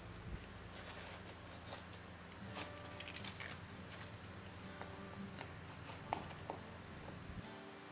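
Faint hand-work sounds on a wooden workbench: sandpaper rustling and scraping and small taps of a wood strip and metal blade being handled, over a steady low hum.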